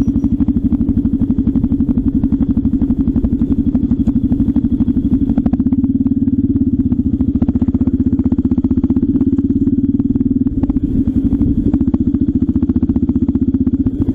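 Motorcycle engine running at low road speed, heard from the rider's own bike as a fast, even pulsing. A deeper rumble joins it for a few seconds midway.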